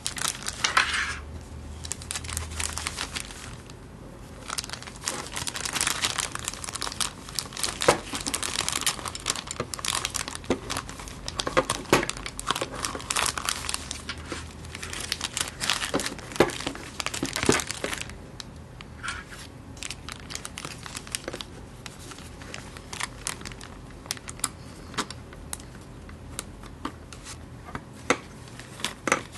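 Plastic bag crinkling and rustling as hands work a pistol's small safety parts inside it, with scattered crackles and clicks. Busier in the first half, sparser later.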